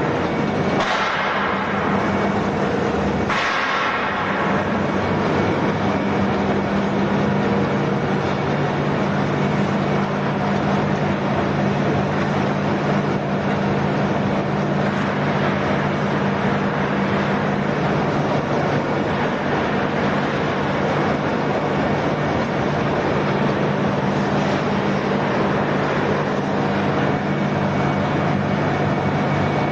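Ring die pellet mill for sawdust and rice husk running: a steady, loud mechanical hum with a constant low drone under a wash of machine noise, and two short louder bursts in the first few seconds.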